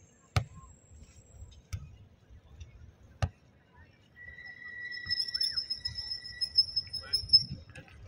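A volleyball being hit by hand, three sharp slaps about a second and a half apart, over a low background murmur. Then a steady high-pitched tone lasting about three seconds, louder than the hits.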